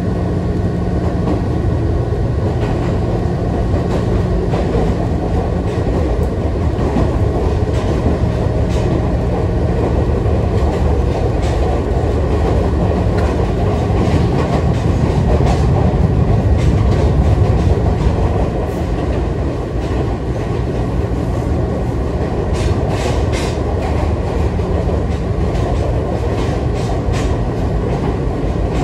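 Electric commuter train running along the track, heard from inside the carriage: a steady low drone of wheels and running gear with a held hum, swelling a little past the middle, and a string of sharp rail-joint clicks near the end.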